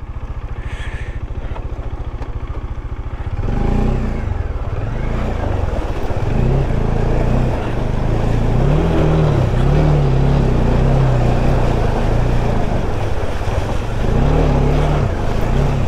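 Motorcycle engine idling with an even pulse, then pulling away under throttle about three seconds in, its pitch rising and falling as the bike rides through a shallow rocky river, with water and stones churning under the tyres.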